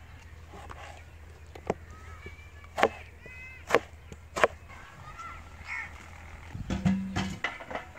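A kitchen knife cutting through tomatoes onto a plastic cutting board: a few sharp, separate knocks about a second apart. Birds call in the background, and a brief low tone sounds near the end.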